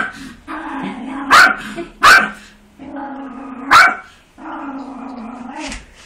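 Dog barking angrily: three sharp, loud barks, with a sustained growl held between them.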